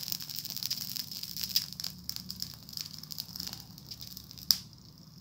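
Bundle of dry spaghetti burning in an open flame, hissing and crackling with many small snaps. One sharper click comes about four and a half seconds in, and after it the sound goes quieter.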